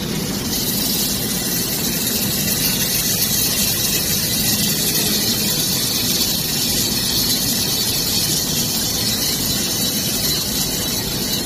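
Drum coffee roaster's fans and motors running steadily. About half a second in, freshly roasted beans are dropped from the drum into the perforated cooling tray, and a loud hiss and rattle of beans being stirred by the rotating agitator arms continues from then on.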